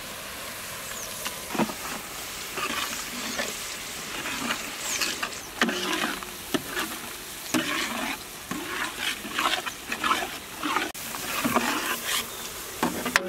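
Masala gravy sizzling in a large aluminium pot while a metal ladle stirs the added spice paste through it, with repeated short scrapes and knocks of the ladle against the pot.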